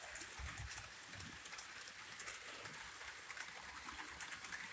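Model trains running on the layout's track: a faint, steady whirr with scattered light clicks of the wheels and a low rumble underneath.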